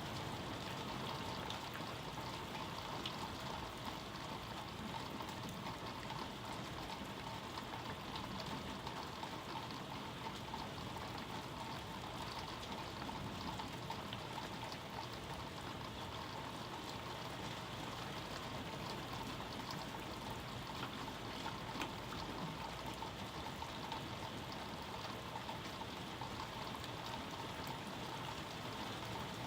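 Steady rain falling: a continuous even hiss with the patter of individual drops, no thunder.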